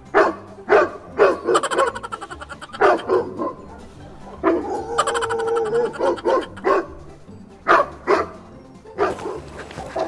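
Recorded dog barking played from a hidden loudspeaker as a prank: many loud barks in quick runs, with music underneath.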